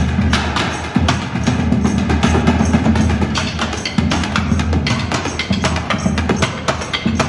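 Two snare drums played with sticks by street drummers, one drum slung from the shoulder marching-style and one on a stand. They play a fast, dense rhythm of rapid strokes.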